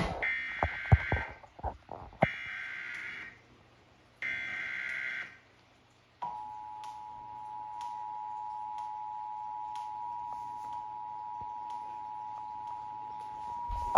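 Emergency Alert System header: three short bursts of buzzing digital data tones about a second apart, then the steady two-note EAS attention signal sounding for about eight seconds, the start of a flash flood warning broadcast. A few clicks come in the first two seconds.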